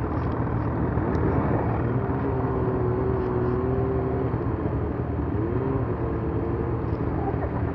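Snowmobile engine running steadily at a low speed, with a held engine tone that shifts slightly higher a little past the middle.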